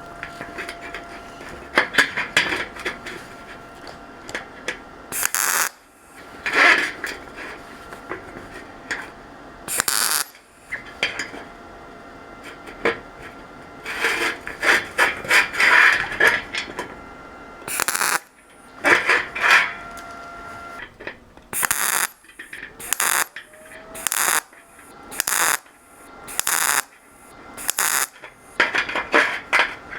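Hand work on a metal bracket: a string of irregular scrapes, rubs and knocks, with a faint steady whine under them for the first two-thirds.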